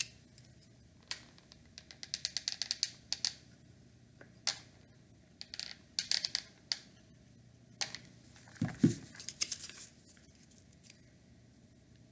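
Small wooden birdhouse pieces being handled and fitted together on a table: scattered clicks and scrapes, a quick run of clicks about two seconds in, and a louder knock near nine seconds.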